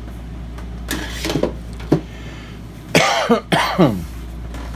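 A person coughing, three short coughs in quick succession about three seconds in, over a steady low hum.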